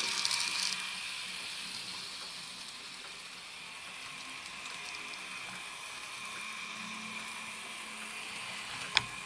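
N gauge model train running on the layout's track: the DCC locomotive's small motor whine and wheel noise, louder for about the first second. A single sharp click near the end, as the train comes off the track.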